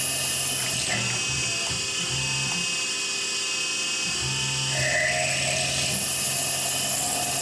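Tormach PCNC 1100 CNC mill's spindle running with a steady whine while a drill bit drills a hole in an aluminum part; the tone shifts a little after four seconds in.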